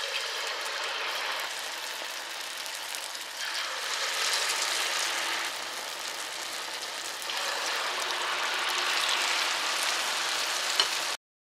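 Salt cod fritter batter deep-frying in a stainless steel skillet of oil at about 350°F: a dense, steady sizzle and crackle of bubbling oil, swelling a little a couple of times and cutting off abruptly near the end.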